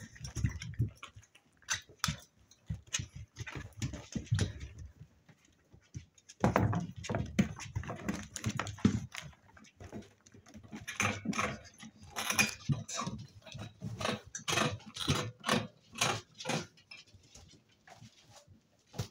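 Seven-week-old spaniel puppies at play: dog sounds mixed with many short, irregular knocks and scrapes as they paw and climb on a plastic storage box. The sounds are busier from about a third of the way in.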